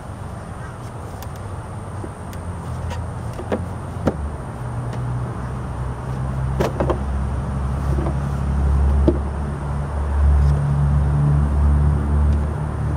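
Scattered clicks and knocks of the plastic under-seat bucket being worked loose and lifted on a Kymco People GT 300i scooter, over a low rumble that grows louder from about four seconds in.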